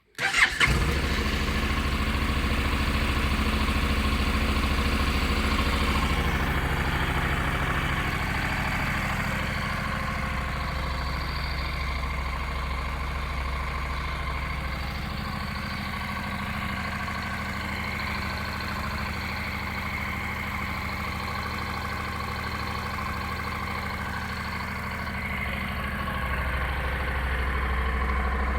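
Honda NC700S's 670 cc parallel-twin on its stock exhaust starting up and catching within the first second, then settling into a steady idle. The idle note shifts slightly a few times.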